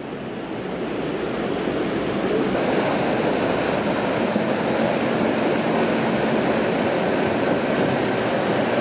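Rushing water of a mountain river, a steady noise that grows louder over the first two or three seconds.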